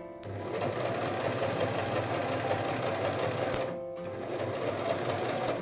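Domestic electric sewing machine running a straight stitch, its needle clattering rapidly as it feeds the fabric. It stops briefly just under four seconds in, then starts sewing again.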